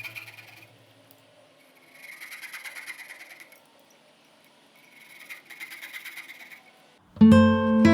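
Three slow scraping strokes of a hand tool working wood, each lasting about a second and a half with a fine rapid rattle, and short pauses between them. Near the end, acoustic guitar music comes in loudly.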